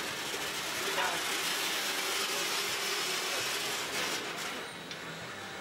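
Freight cars rolling slowly past on the rails, steel wheels and car bodies making a steady rattling noise that swells in the middle and eases near the end.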